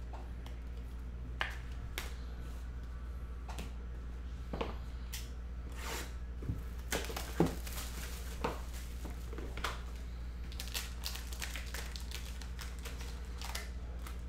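Clear plastic wrapping crinkling and tearing as trading-card packs are opened, with scattered clicks and taps of cards and hard plastic card holders on the table; the loudest click comes about seven seconds in. A steady low hum runs underneath.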